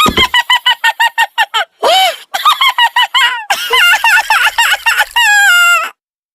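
Electronic vehicle siren running through its tone patterns: a fast train of short beeps, then sweeping, warbling chirps, then a held tone that steps down and cuts off about a second before the end.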